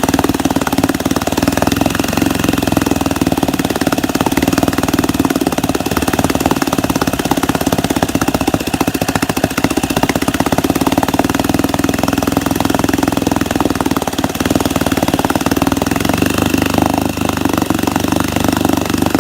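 1964 Wards Sea King 3 hp two-stroke outboard motor running steadily at idle, with a fast, even firing rhythm. Its carburettor mixture knob has just been turned back toward rich after it ran lean and sneezed.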